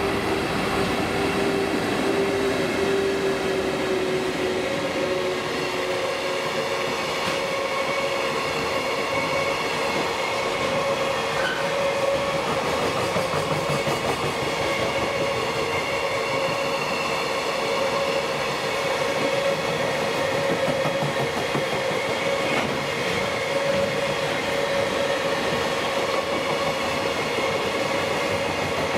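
Container freight train hauled by an EF81 electric locomotive running through a station: the steady rumble and clatter of wheels on rail as the long line of container wagons goes by. A steady tone runs over the rumble, with a lower one fading in the first few seconds as the locomotive passes.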